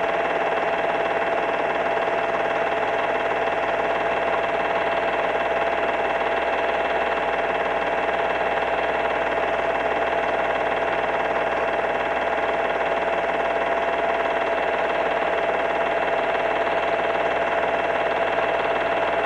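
Steady hiss with a constant high whine running underneath, unchanging throughout.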